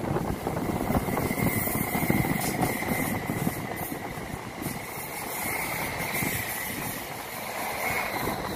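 Vy class 74 (Stadler FLIRT) electric multiple unit moving past along the platform. It makes a steady rumble of wheels on rail with a thin, steady high whine above it that swells slightly in the second half.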